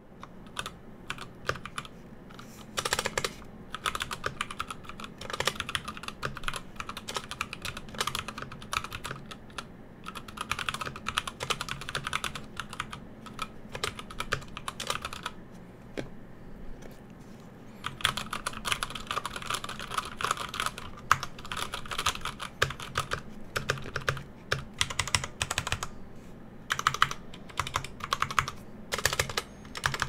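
Typing test on a custom 60% mechanical keyboard with Gateron Brown tactile switches on a carbon fibre plate in a bamboo case: a fast, dense clatter of keystrokes in runs, with brief pauses between them.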